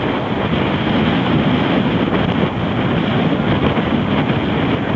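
Strong wind buffeting the microphone aboard a sailboat heeling under sail, steady and loud, with the rush of choppy water along the hull beneath it.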